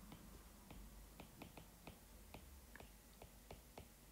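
Faint, sharp clicks of a stylus tip tapping on a tablet screen during handwriting, several a second at uneven spacing, over near-silent room tone.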